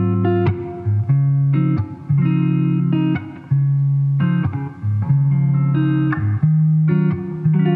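Background music: a plucked guitar tune over a bass line that moves in held notes, changing every half second or so.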